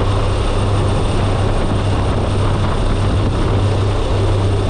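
DHC-6 Twin Otter's twin turboprop engines and propellers running steadily, heard from inside the cabin as a loud, even drone with a strong low hum, mixed with wind rush through the open jump door.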